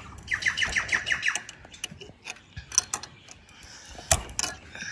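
Metal spanner clicking on the nut of a dynabolt anchor set in brick as it is tightened: a quick run of about seven sharp clicks in the first second or so, then scattered clicks and a louder knock about four seconds in.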